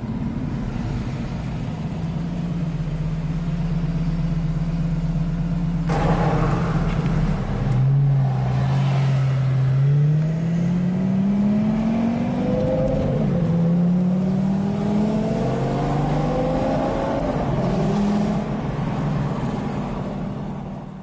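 Lamborghini Gallardo Superleggera's V10 through an aftermarket LOC exhaust, running steadily and then accelerating hard: the revs climb, drop briefly at an upshift and climb again. A brief sharp noise about six seconds in.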